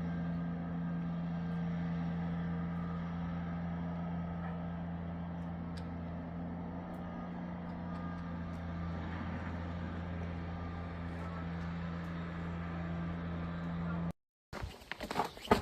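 A motor vehicle's engine running with a steady, even hum; it cuts off abruptly near the end, and after a brief silence a series of sharp knocks starts.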